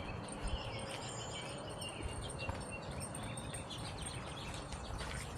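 Wind buffeting the microphone as a steady low rumble, with faint high chirping in the background.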